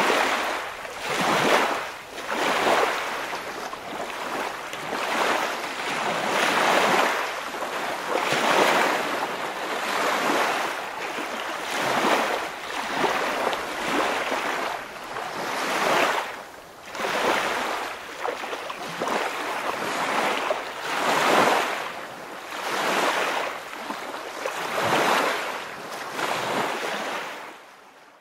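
Waves washing, a hiss that swells and ebbs every second or two, fading out near the end.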